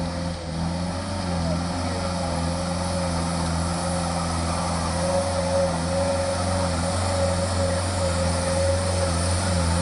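Loaded Mitsubishi Fuso truck's diesel engine running steadily in a low, even drone as the truck crawls through mud toward the microphone, growing slightly louder near the end, with a steady whine above the engine note.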